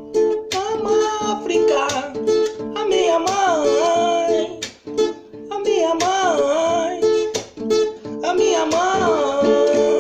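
A man singing over a strummed acoustic guitar, in several long phrases; near the end the voice drops out and the guitar strumming carries on alone.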